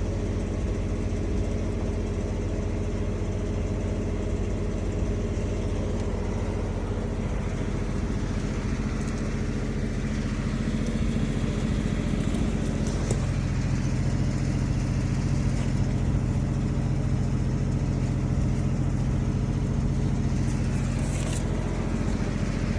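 Construction machine's engine idling steadily, its note shifting slightly about halfway through.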